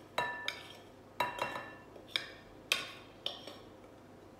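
Glass bowls clinking: about seven sharp, ringing knocks as a small glass bowl is tipped and tapped against the rim of a larger glass mixing bowl to empty dry flour mix into batter.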